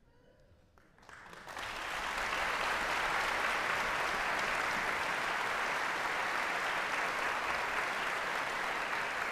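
Audience applause in a concert hall, starting about a second in and quickly building to steady, full clapping.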